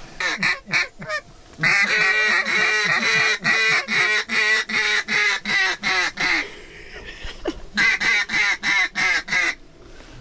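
Hand-blown duck call sounding a rapid string of quacks, about three or four a second, each note dropping in pitch. The notes come in three runs: a short one at the start, a long one, and another near the end.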